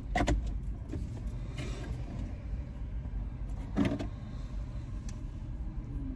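Steady low hum of a car idling, heard from inside the cabin, with a few short knocks and clicks, one at the start and one a little before four seconds in.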